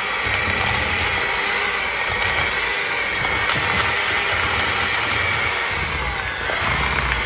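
Electric hand mixer running, its beaters churning thick red velvet cake batter in a plastic bowl: a steady, loud motor whine that sags briefly about six seconds in and picks up again.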